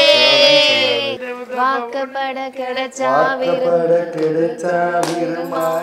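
People singing a song through a microphone, with long held and sliding notes.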